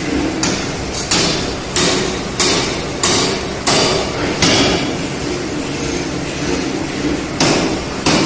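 Pneumatic forging hammer striking a red-hot steel blank: seven heavy blows at about one and a half a second, a pause of about three seconds, then two more near the end. A steady machine hum runs underneath.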